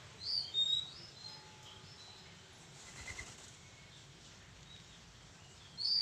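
Small bird chirping high and short: a quick pair of chirps about half a second in and another pair right at the end, over a faint steady background noise.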